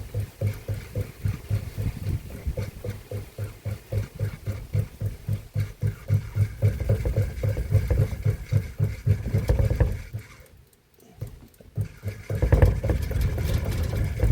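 Washing-machine motor driving a home-made potter's wheel, switched rapidly on and off by a timer relay, giving a low hum that pulses about four times a second. It cuts out for about a second near two-thirds through, then starts up again.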